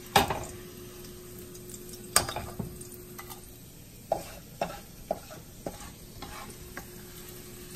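A spatula scraping and knocking against frying pans as fried okra is scooped from one pan into another, over a faint sizzle of oil. The scrapes and knocks come one by one, the loudest right at the start.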